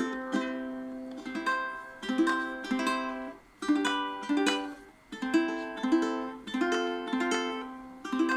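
Tenor ukulele with nylon strings strummed in a short chord progression, each strum ringing out before the next, with brief pauses between phrases.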